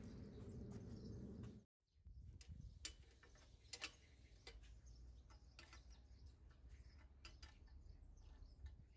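Faint, irregular sharp clicks of a wrench working the bolts that fix a drill press column's flange to its base. A low rumble runs for the first second and a half and cuts off.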